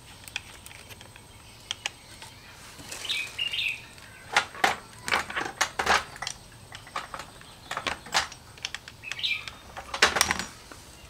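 Clinks and clicks of metal tools being handled, in several short clusters of sharp taps, with no drill running. A bird chirps briefly twice in the background.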